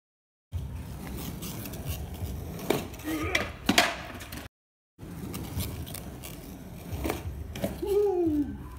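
A tiny homemade mini cruiser skateboard with soft urethane wheels rolling on rough concrete, a low rumble, with several wooden clacks of the board and feet. The loudest clack comes a little before the middle. The sound drops out twice where the footage is cut, and a short voice is heard near the end.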